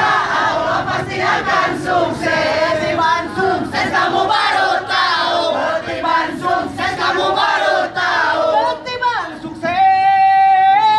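A group of people chanting and singing together loudly, many voices at once. About nine seconds in, the voices give way to one long steady high tone held for about three seconds.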